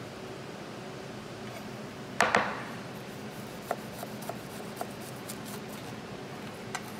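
A chef's knife cutting through a toasted breakfast-sandwich roll on a plastic cutting board. There is a sharp knock and crackle a little after two seconds in, then a few light clicks as the blade works through.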